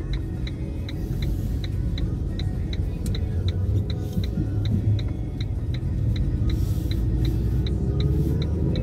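Car driving in town with a steady low road-and-engine rumble. An even ticking about three times a second runs over it, the turn indicator clicking through a turn, and it stops near the end.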